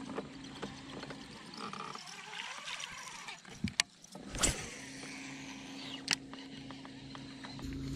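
Bow-mounted electric trolling motor humming steadily, cutting out for a couple of seconds near the middle and then running again. A few sharp clicks and knocks come from the rod and reel while casting and retrieving.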